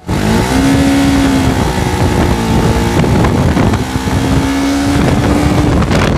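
TVS Apache RR310's single-cylinder engine through its stock, unmodified exhaust, pulling hard twice: each time the pitch climbs and then holds steady at high revs. It cuts off abruptly at the end.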